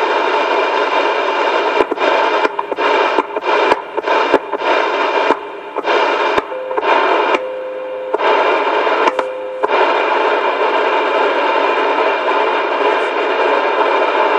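Loud, steady radio static hiss, broken by a string of short cut-outs and clicks over the first ten seconds, with a few short low beeps in the middle.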